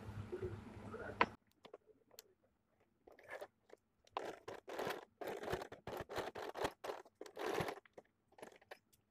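Faint, choppy clicking and rustling of a domestic electric sewing machine stitching a zipper seam in short runs, busiest between about four and eight seconds in, with the cotton fabric rustling as it is guided under the foot.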